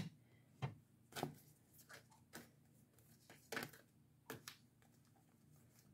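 Faint, scattered taps and rustles of tarot cards being handled, about six in the first four seconds or so, with near silence between and after.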